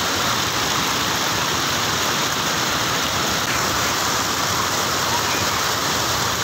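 Water pouring steadily over a low concrete weir and rushing across the shallow slab below it: a continuous, even rushing noise.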